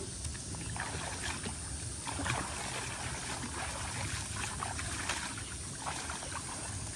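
Shallow pond water sloshing, with small scattered splashes as people wade and bend down in it, over a steady outdoor hiss.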